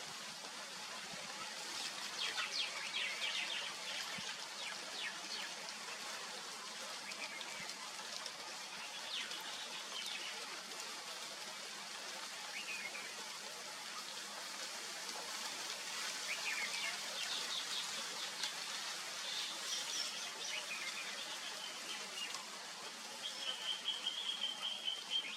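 Birds chirping in scattered short calls over a steady outdoor hiss, with a steady high-pitched buzz for about two seconds near the end.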